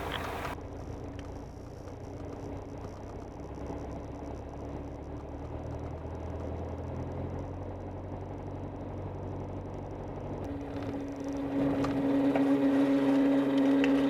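Piper PA-28-180's four-cylinder Lycoming engine running at low power on the ground, a steady low drone. About eleven seconds in, a steady hum comes in and the sound grows louder.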